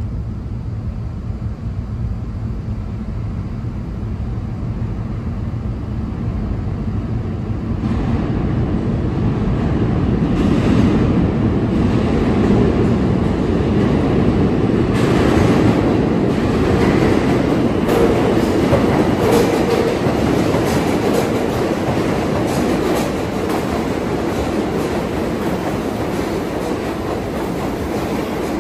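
New York City subway train running on the IND Queens Boulevard line through an underground station: a low rumble that swells about eight seconds in, with wheels clicking over rail joints and thin high tones above, easing off near the end.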